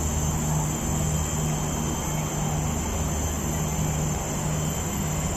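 A steady low engine-like drone at an even pitch, swelling slightly, with a high, even insect buzz above it.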